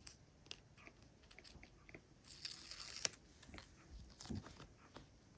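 Faint paper crafting sounds: scattered small taps and clicks, a short scratchy rustle about two and a half seconds in and a soft thump a little after four seconds, as the white backing is peeled from double-sided tape and the paper is pressed down.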